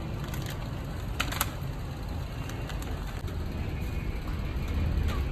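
A few sharp knocks of a knife chopping chicken on a cutting block, two close pairs in the first three seconds, over a steady low background rumble.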